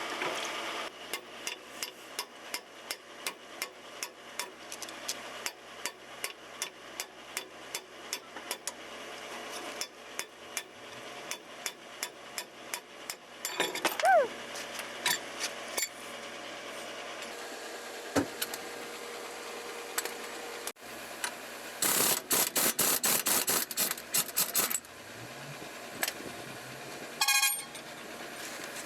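Metal tool work on a truck's rear axle: sharp metallic taps repeating about two to three times a second, then a dense run of rapid strikes a little over two thirds of the way in.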